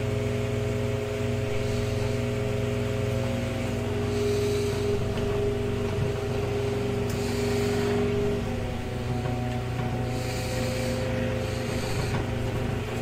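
Vintage Toastmaster 5301-1 electric fan running: a steady motor hum with several tones that shift about eight seconds in, and an air hiss that swells and fades every few seconds.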